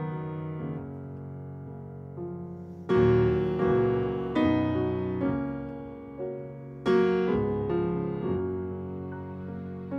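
Background piano music: a slow run of notes that ring and fade, with louder chords struck about three seconds in and again about seven seconds in.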